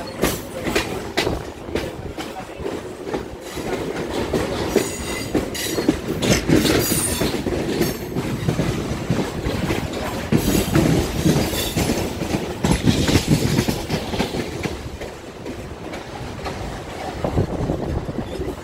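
Mumbai suburban local train (an electric multiple unit) running along the track, heard from an open carriage doorway: a steady rumble with the clickety-clack of wheels over rail joints, quick sharp clacks in the first couple of seconds, and high wheel squeals about a third of the way in.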